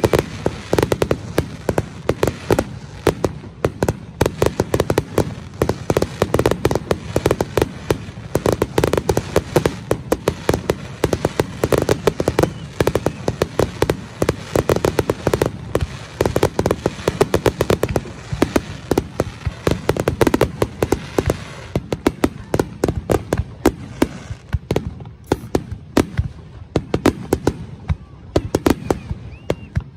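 Fireworks display: a dense, rapid run of cracks and bangs from shells being fired and bursting, many reports a second, thinning out over the last several seconds.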